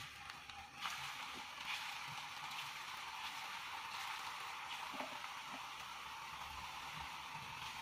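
Hot soybean oil sizzling softly as stuffed rice-flour dumplings (puli pitha) are laid in to fry. The sizzle grows a little under a second in as more dumplings go into the pan, with faint crackles throughout.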